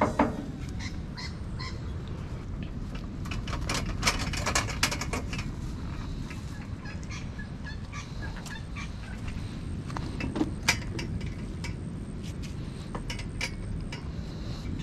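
Steady wind rumble on the microphone, with scattered sharp clicks and crackles, thickest about four to five seconds in, as foil-wrapped fish on a small grill is handled.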